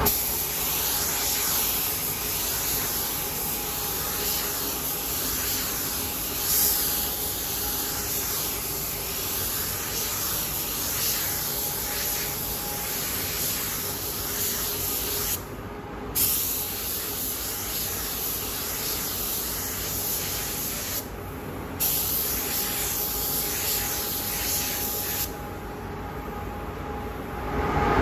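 Compressed-air paint spray gun hissing steadily as paint is sprayed onto a motorcycle helmet, with two short breaks where the trigger is let off; the hiss stops near the end, leaving a lower steady hum.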